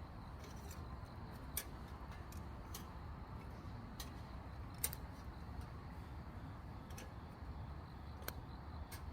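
Scattered single ticks, irregular and a second or so apart, over a steady low background: raindrops dripping onto a tent.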